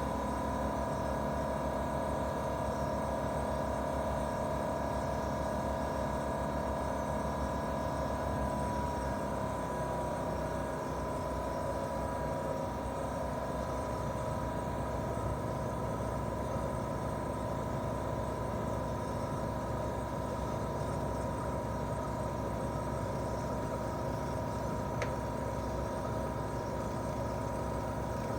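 Daikin R28RMV mini-split outdoor unit running in heating mode, its inverter-driven twin-cylinder swing compressor and fan giving a steady hum with a high whine that shifts slightly up in pitch about nine seconds in as the compressor changes speed. A faint tick sounds near the end.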